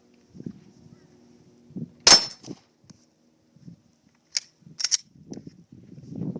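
A single 9mm shot from a Glock 17 pistol, fired with one round loaded and no magazine in the gun, about two seconds in. Two short sharp clicks follow a couple of seconds later.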